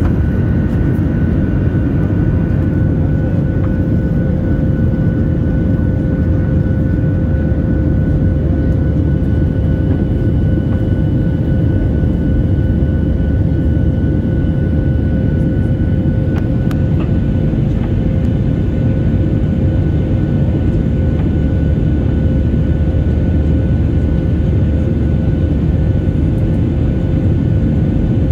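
Jet airliner cabin noise during the climb after take-off: a steady, loud low rumble of engines and airflow heard through the fuselage, with two faint steady whine tones running through it.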